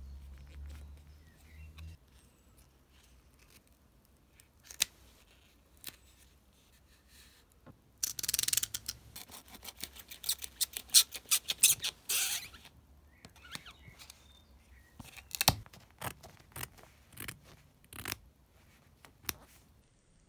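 Aluminium foil tape being handled and trimmed with a craft knife. Scattered small crinkles and clicks, with a dense crackling stretch of about four seconds near the middle, then more sharp clicks.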